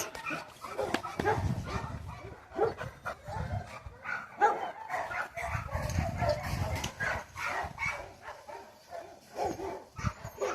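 A dog giving short, repeated vocal calls, mixed with sharp clicks and knocks.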